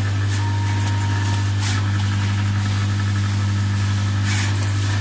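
Automatic through-hole component insertion machine running: a steady low hum, with a few short hisses at irregular intervals.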